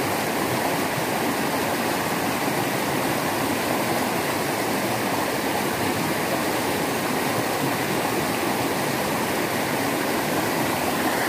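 Shallow rocky river rushing steadily over stones, a continuous even rush of water.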